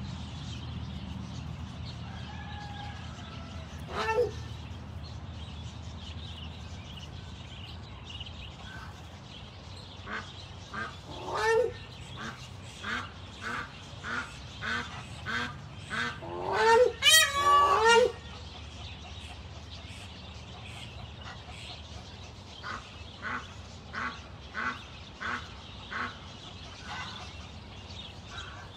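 Domestic ducks quacking: a single loud quack about four seconds in, then a run of short quacks at about one or two a second, a burst of loud, rapid quacking a little past halfway, and more spaced quacks later.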